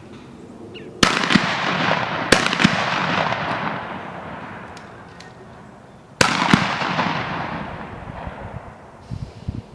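Two shotgun blasts about five seconds apart, each followed by a long rolling echo that dies away over several seconds. A couple of sharper cracks come just after the first blast.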